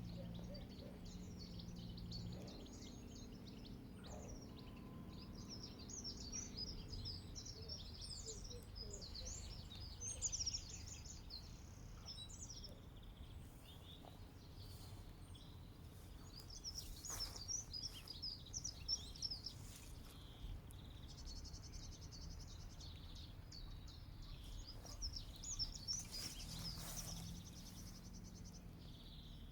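Several small songbirds chirping and singing in quick, overlapping phrases, over a steady low wind rumble, with a few brief louder noisy moments.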